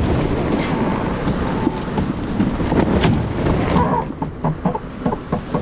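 Strong wind buffeting the microphone over the rush of water along a racing sailboat's hull as it sails fast in high wind.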